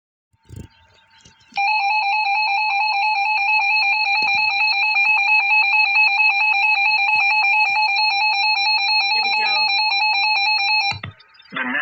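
Emergency Alert System attention signal: a steady electronic alert tone at one fixed pitch that starts about a second and a half in and cuts off suddenly near the end. It marks the start of an emergency warning broadcast.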